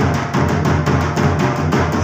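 Folk dance music driven by a fast, steady drum beat.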